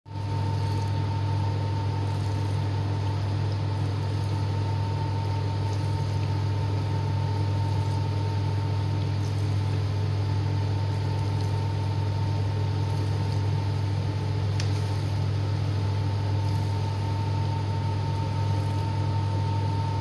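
Koryo countertop dishwasher running its wash cycle: the pump motor's steady low hum with a thin steady whine above it, and water spraying against the dishes and the glass door.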